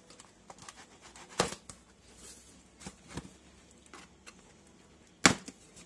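Cardboard shipping box being cut and pried open with a small blade: scattered clicks, taps and scrapes of blade and cardboard, with a sharp knock about a second and a half in and a louder one near the end.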